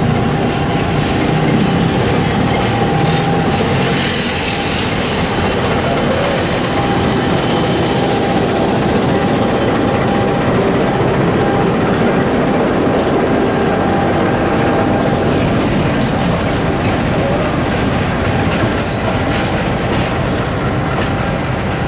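Diesel locomotive and passenger coaches passing close by, with the engine and the wheels on the rails running loud and steady. The engine's low drone is strongest in the first few seconds.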